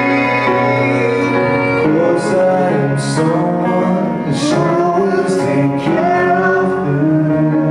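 A man singing a song to grand piano and acoustic guitar accompaniment.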